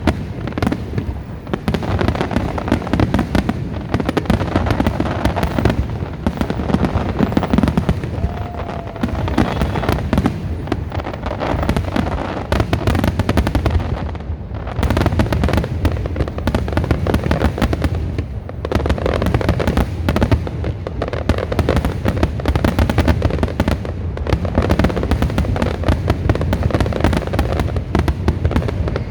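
Fireworks display going off continuously, a dense barrage of bangs and crackling pops with no pauses.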